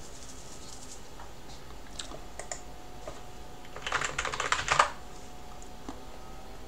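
Computer keyboard being typed on: a quick run of keystrokes about four seconds in, a password entered at a login screen, ending on one louder keystroke. A couple of single clicks come about two seconds in.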